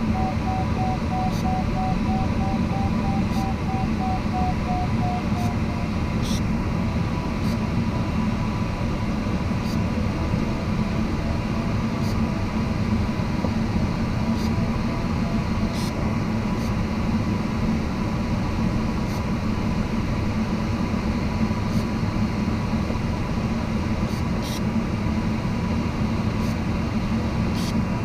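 Steady airflow rush in a glider cockpit, with the variometer's audio tone beeping rapidly throughout, its pitch stepping down slightly about six seconds in; the beeping tone signals that the glider is climbing in wave lift.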